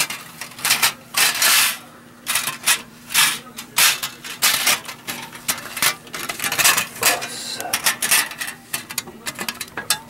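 Steel cylinder-head gasket of a Honda CB400 engine clinking and scraping against the block and cylinder studs as it is worked off: an irregular run of short metallic rattles and clanks.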